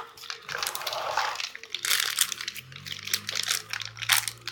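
Plastic packaging, a bubble-wrap bag among it, crinkling and rustling as it is handled, with many short crackles and clicks.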